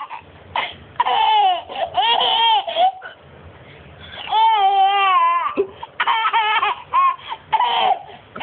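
Toddler laughing hard: long, high-pitched squeals of laughter in about half a dozen bouts, with short breaths between them.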